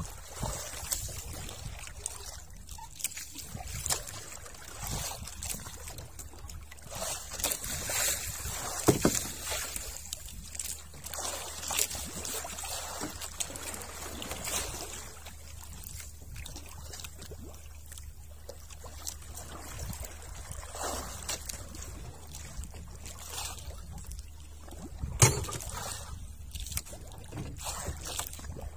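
Water lapping and sloshing against the side of a small boat, with scattered knocks and clicks from handling in the boat; the sharpest knock comes near the end.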